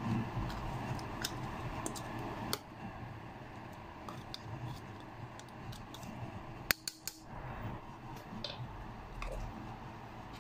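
Scattered light clicks and handling noises of kitchen work, with a few sharper clicks close together about seven seconds in.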